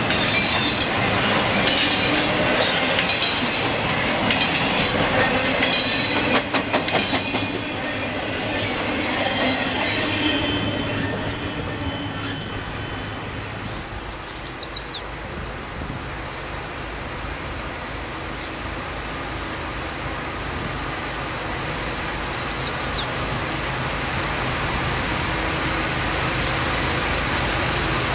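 Double-stack container freight cars rolling past close by, wheels clacking over rail joints. The sound then drops to a distant diesel locomotive's low engine hum, which grows louder as the train approaches. Two brief high chirps are heard in the quieter part.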